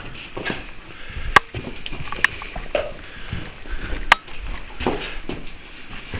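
Footsteps scuffing and crunching over a debris-strewn floor, with three sharp cracks or snaps, the loudest sounds, about one and a half, two and a half, and four seconds in.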